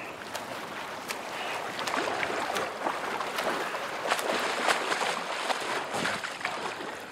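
Choppy seawater sloshing and splashing close by, with many short splashes, growing louder after about two seconds.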